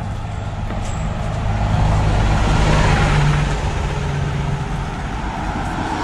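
A bus driving past on the road: its engine hum and tyre noise grow louder to a peak about two to three seconds in, then fade.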